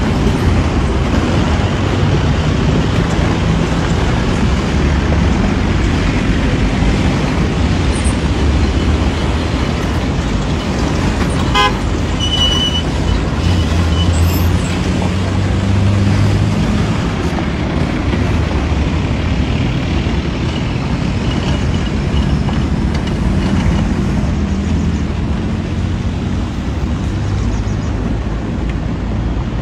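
A convoy of cars and pickup trucks driving slowly past on a dirt road, engines and tyres making a steady low rumble. A short vehicle horn toot sounds a little before the middle.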